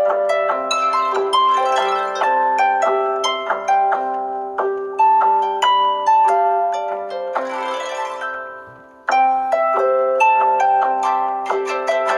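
Samsung Galaxy S6 edge+ ringtone: a plucked, harp-like melody of quickly decaying notes over a held low note. The phrase dies away and begins again about nine seconds in.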